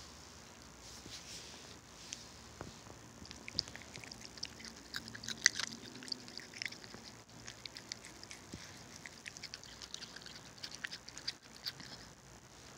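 A cat chewing a piece of raw cucumber from a hand: a faint run of small, quick clicks and crunches.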